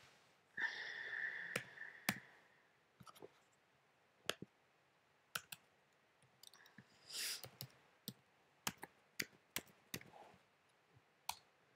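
About fifteen sharp, irregular clicks and taps of fingers handling the recording device close to the microphone. There is a short hiss about half a second in and another near the middle.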